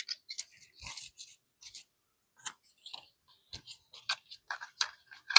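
Paper bills being handled and put away: scattered soft rustles and small clicks, irregular throughout.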